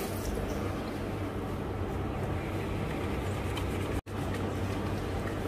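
Steady rush of tap water running into a small sink while hands are washed, over a low hum. It cuts out for a split second about four seconds in.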